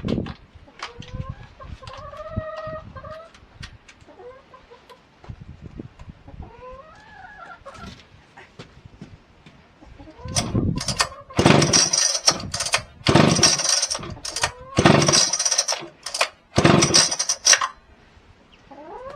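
Chickens clucking, with short pitched calls. Then comes a run of four loud, harsh bursts of about a second each, in the second half.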